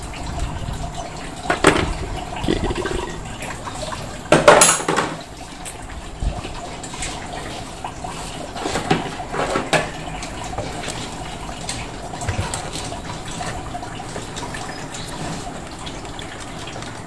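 Water trickling and dripping in a car's cooling system after a radiator flush, with a few short knocks and rattles of a ratchet wrench and the plastic coolant overflow tank as it is unbolted; the loudest clatter comes about four and a half seconds in.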